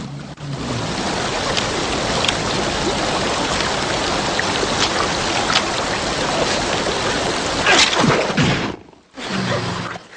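A steady rushing noise, with a louder swell about eight seconds in, then a sudden brief dropout before it resumes.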